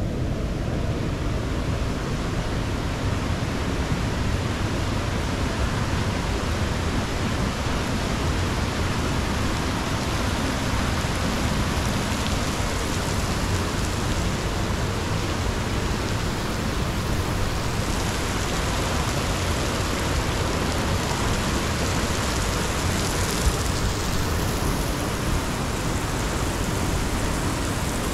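Waterfall and cascading stream in a rock gorge, rushing steadily without a break.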